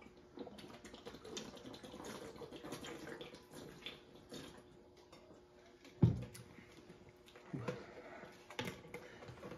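Two people gulping sports drink down from plastic bottles: faint swallowing and liquid ticks and sloshing. A sudden louder thump or gasp comes about six seconds in as they finish, with a few smaller breaths after it.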